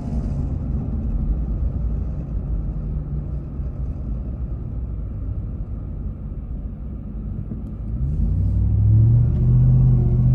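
Ram TRX pickup heard from inside the cab while driving: a steady low road and drivetrain rumble. About eight seconds in, a low drone rises and then holds louder, the kind of strange vibration noise the owner hears when the truck takes off, seemingly from the dash.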